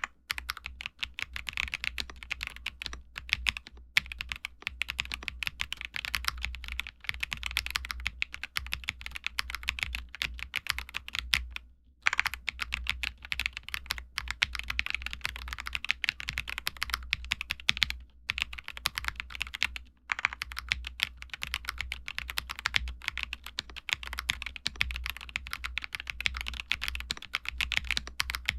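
Continuous fast typing on an Akko ACR TOP 40 mechanical keyboard fitted with lubed Akko CS Piano switches: a dense run of key clacks, broken by a short pause about 4, 12 and 20 seconds in.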